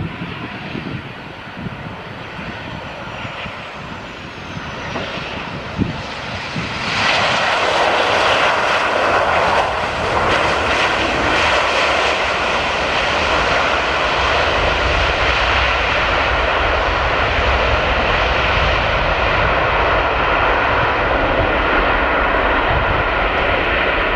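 Jet engines of a Lion Air Boeing 737 running on the runway. The noise is moderate with a faint high whine at first, jumps sharply about seven seconds in, and stays loud and steady.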